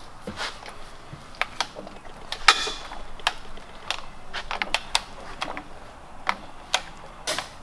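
Hand-operated ratcheting tube bender being worked through a bend on aluminum tubing: the ratchet and pawl give sharp metallic clicks and clanks at an irregular pace of about two a second as the lever is pumped.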